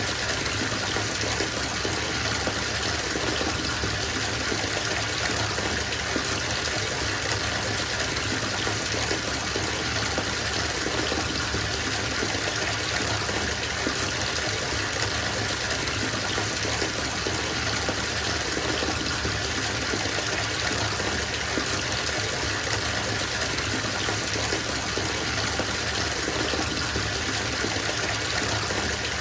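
Water pouring steadily from a faucet into a filling bathtub, an even, unbroken gushing.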